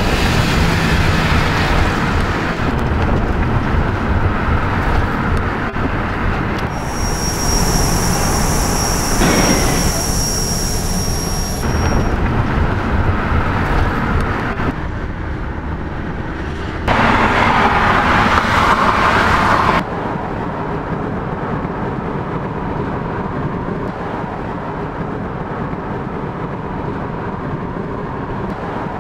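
Loud vehicle and traffic noise, cut into sections that change abruptly several times, with a steady high tone for about five seconds in the first half.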